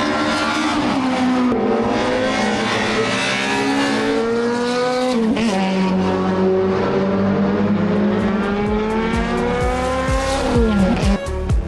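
Race car engine accelerating hard up through the gears: the engine note climbs steadily and drops sharply at each upshift, three times.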